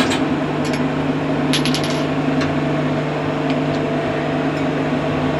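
Cold forging hydraulic press running with a steady hum, and light metallic clinks of small steel workpieces being handled at the die, a quick cluster of them about a second and a half in.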